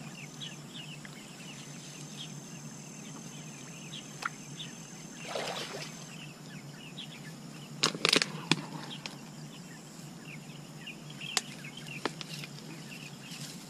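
Small birds chirping over a low steady outdoor hum. A few sharp clicks and short rough bursts of handling noise come from hands working in mud, water and reeds, the loudest a cluster about eight seconds in.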